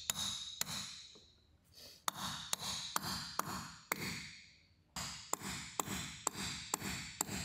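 Caulking mallet striking a caulking iron, driving cotton into the deck seams: steady ringing taps, about two to three a second, with short pauses about one and a half seconds in and again at about four and a half seconds.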